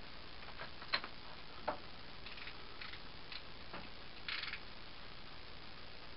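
A few sparse clicks and knocks of hand tools being picked up and handled at a workbench, the two sharpest about a second apart early on, then a brief scratchy scrape about four seconds in.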